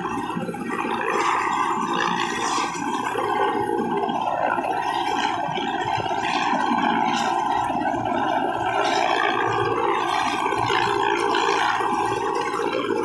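Mi-17-type military transport helicopter running on the ground with its rotors turning: steady turbine and rotor noise that holds level throughout.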